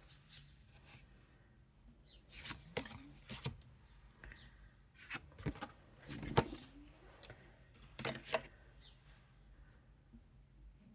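Faint taps and rustles of cards being handled and laid down, in a few short clusters about two, five, six and eight seconds in.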